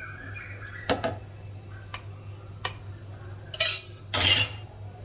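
A metal spoon tapping and scraping in a cooking pot: a few light clinks, then two longer scrapes near the end, over a steady low hum.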